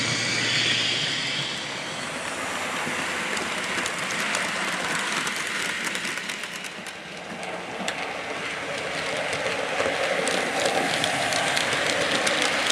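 Model freight train running on a layout: a steady rushing noise with quick, uneven clicks of the wagon wheels over the track, starting about three seconds in. There is a hiss for the first second or two.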